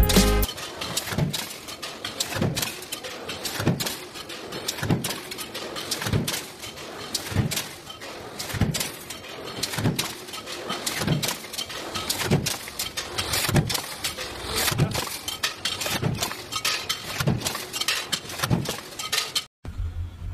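Mechanical stamping press running a progressive die in continuous strokes: a heavy thud with metal clatter about every 1.2 seconds, over constant rattling and clicking of the tooling. The sound cuts off suddenly just before the end.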